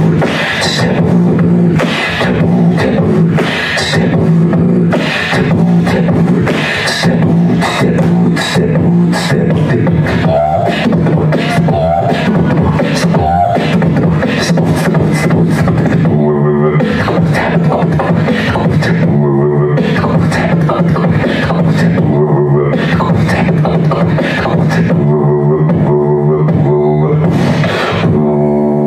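Human beatboxing through a handheld microphone and club PA: quick rhythmic percussive mouth sounds over a continuous low bass hum, with a short wavering pitched vocal line around the middle. In the second half the clicks thin out and the bass turns into pulsing, pitched throat-bass notes.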